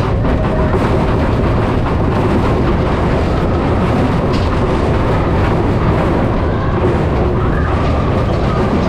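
Mine-train roller coaster running along its track at speed: a loud, steady rumble of the train's wheels on the rails.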